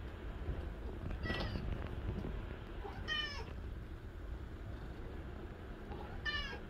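Domestic cat meowing three times, short calls a couple of seconds apart, over a steady low hum.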